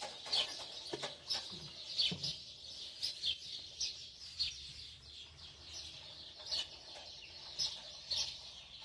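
Small birds chirping outdoors: a steady run of short, high, falling chirps, a couple a second.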